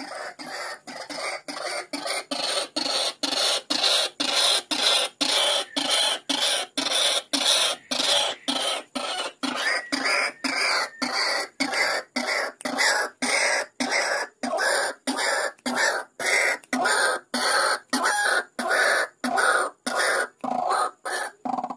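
White-breasted waterhen calls played as a trapping lure: a long run of harsh repeated notes, about two a second.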